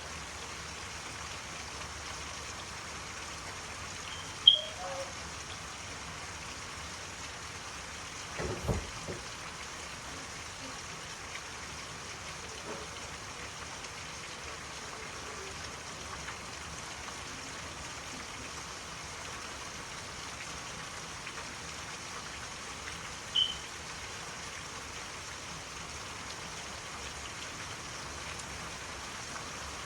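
Steady rain falling, an even hiss. A short sharp sound about four seconds in and again near the end, and a low thump at about eight seconds.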